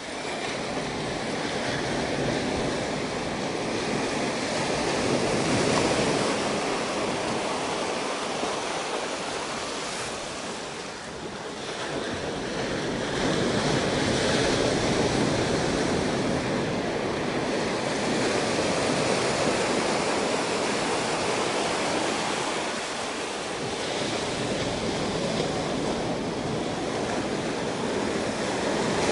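Ocean surf washing up a sand and rock beach: a steady rush of breaking waves that swells and eases. It dips briefly about a third of the way in, then builds again.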